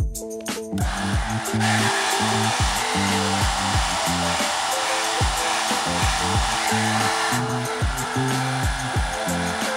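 Braun Creation 1700 hand-held hair dryer switched on about a second in and blowing steadily, a loud even hiss of air. Background music with a bass line and beat plays underneath.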